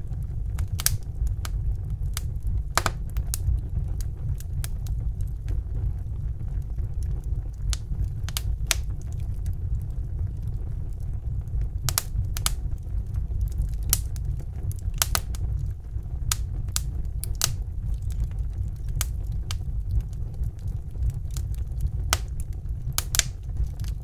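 Wood fire crackling: irregular sharp pops and snaps, several a second, a few of them louder, over a steady low rumble.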